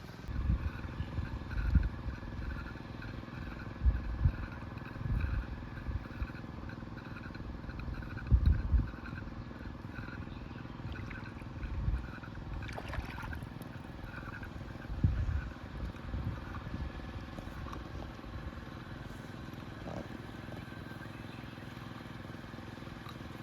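A small engine runs steadily, with a fluttering tone typical of a machine working a paddy field to drag a weeding chain. Irregular low rumbling gusts come and go, most in the first half.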